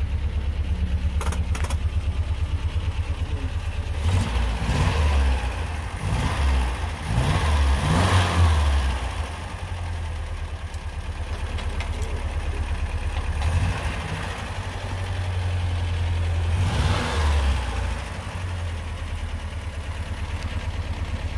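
Fiat 125p's 1.3-litre four-cylinder engine idling evenly and running smoothly. It is revved up briefly several times, each time dropping back to idle.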